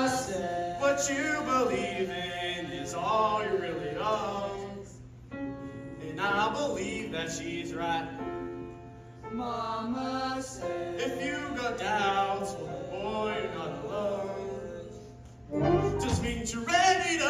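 A young man singing a solo show tune in held, sliding phrases over quiet backing music; near the end a full band backing track with drums comes in.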